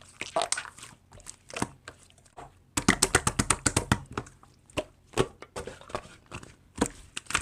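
Slime being squished and worked by hand, giving sticky clicks and pops, with a quick run of clicks about three seconds in.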